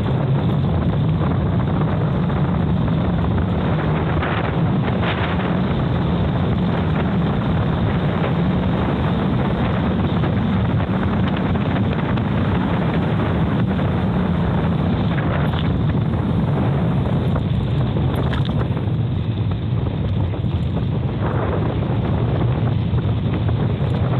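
Steady, loud wind rush on the microphone of a camera riding along on a moving mountain bike, with a few brief knocks and rattles from the bike over the trail.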